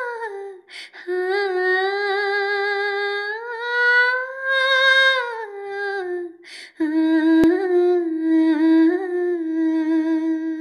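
A woman's unaccompanied wordless singing, the hummed opening of a Tamil lullaby, sung into a microphone. Long held notes glide slowly up and down, with two short breaths between phrases.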